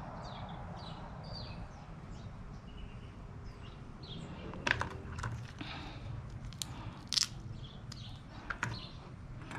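Cooked mud crab shell crunching and cracking as it is broken apart by hand to get at the meat, with a handful of short sharp cracks in the second half.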